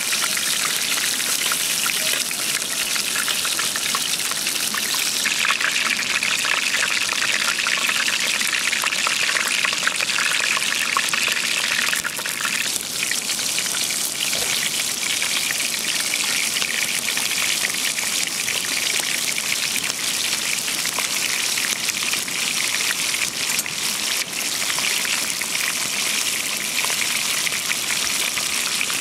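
Chicken pieces frying in oil in a pan: a steady sizzle with fine crackling, which changes about halfway through as sliced onion is tipped in.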